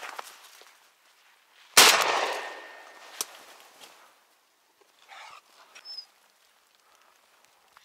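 A single shotgun shot about two seconds in, with a long fading echo, then a sharp click about a second later.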